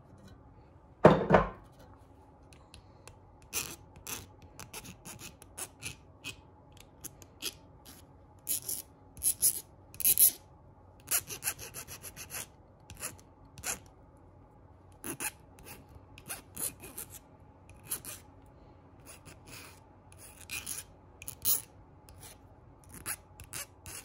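A single thump about a second in, then a hand file rasping in short, irregular strokes across the hammered-flat end of a copper wire, smoothing the tip of a brooch pin.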